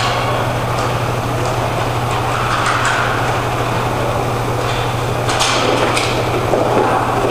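Roller hockey play in an indoor rink: a steady low hum under general game noise, with a few sharp hockey-stick clacks about five to six seconds in as a player shoots at the goal.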